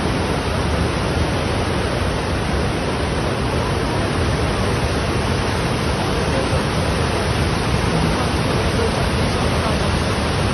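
A muddy floodwater torrent rushing and churning past, a loud, steady, unbroken rush of water. It is a flash flood swollen by heavy downpours.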